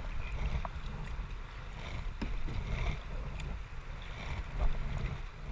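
Kayak on a river: paddle and water sounds with a few light knocks, over a steady low rumble of wind on the microphone.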